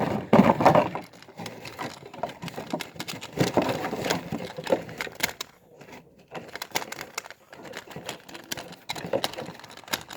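Crackling and rustling of plastic and cardboard toy packaging as it is handled and opened, with many short irregular clicks.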